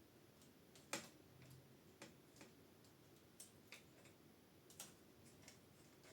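Faint, irregular small clicks and ticks from handling a bicycle gear cable and small parts as the cable is fed back through; one sharper click about a second in.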